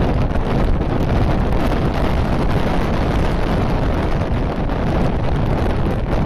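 Strong wind buffeting the microphone in a loud, steady rumble, over the rush of the flooded, muddy Indus River.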